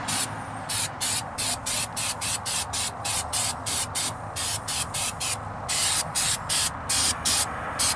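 Air-powered undercoating gun spraying rubberized undercoating through a long wand in short hissing bursts, about three a second, with one longer burst a little before six seconds, over a steady low hum.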